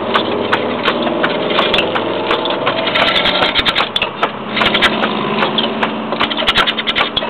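Hand-held gouge cutting the outside of a winged wooden bowl spinning on a treadle lathe: a continuous rough scraping, dotted with a rapid, irregular patter of ticks.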